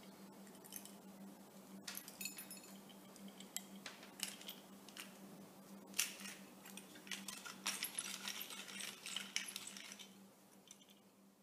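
Small vintage wooden hand-cranked pepper mill being worked by hand, its crank and grinding mechanism making scratchy clicks and rattles. The clicks are sparse at first, then come thick and fast for the last few seconds before stopping.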